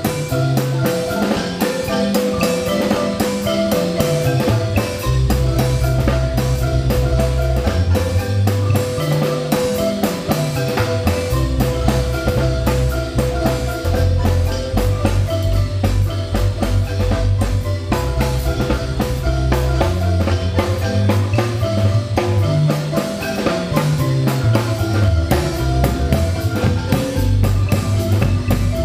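Marimba band playing a dance tune: marimba with held, rolled notes over a stepping bass line and a drum kit keeping a steady beat.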